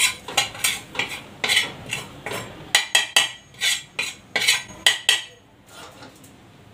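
A spatula scraping and clinking in a kadhai while desiccated coconut is stirred as it dry-roasts, about two or three strokes a second. The strokes stop about five seconds in.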